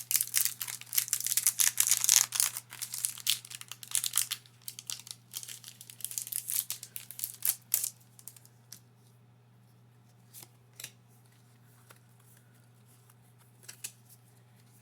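Foil wrapper of a Pokémon Shining Fates booster pack being torn open and crinkled, a dense run of tearing and crinkling for about eight seconds, then only a few scattered clicks.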